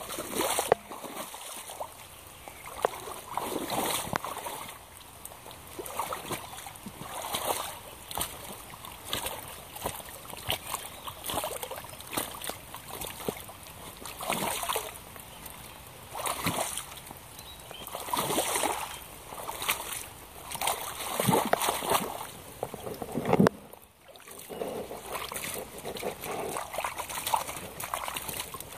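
Yellow Hunter rubber wellington boots wading and stomping through a muddy puddle, water sloshing and splashing with each step, about one step every second or two.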